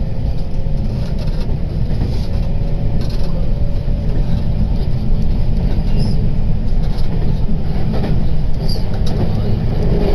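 Running noise inside an electric train carriage on the move: a loud, steady low rumble of the train, with a faint steady tone for the first several seconds.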